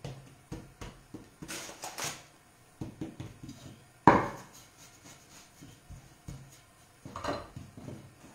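A wooden rolling pin and hands working soft dough on a wooden pastry board: a run of soft knocks and thuds, with a short rustling hiss about two seconds in and a sharper, louder knock about four seconds in.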